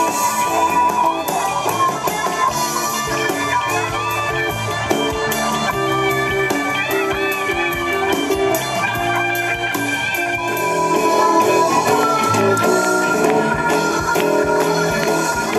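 Live rock band playing an instrumental passage: an electric guitar lead with bent notes over a drum kit and bass guitar, a little louder from about eleven seconds in.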